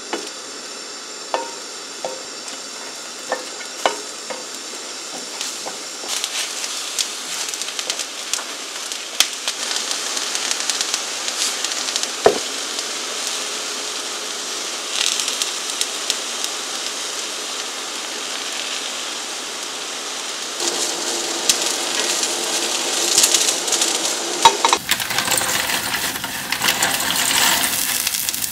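Eggplant slices being laid one by one into hot oil in a nonstick frying pan, a light tap as each goes in, then sizzling steadily as they fry. About 25 seconds in the sound turns deeper and fuller, as a saucepan of water comes to a rolling boil on a gas burner.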